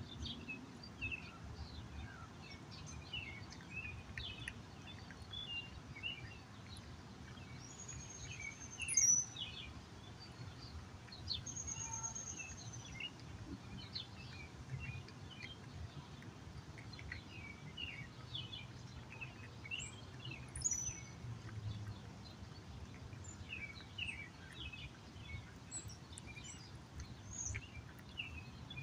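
Songbirds chirping and calling throughout, with two thin, high whistled notes about a third of the way in and again shortly after, over a low steady background rumble. A cat's chewing and lapping at its food sound close by.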